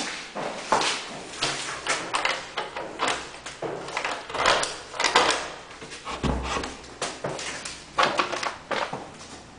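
Footsteps on a hard floor, about two or three a second, among clicks and knocks, with a heavier low thump about six seconds in and a door opened near the end.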